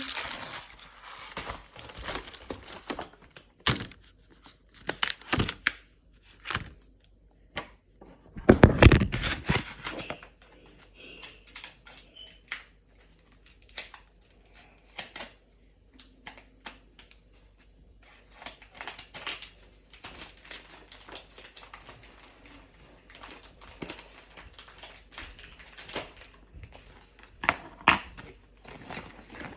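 Packaging being torn open and crinkled by hand: irregular rips, rustles and crackles, with the loudest tearing burst about nine seconds in and quieter fiddling between.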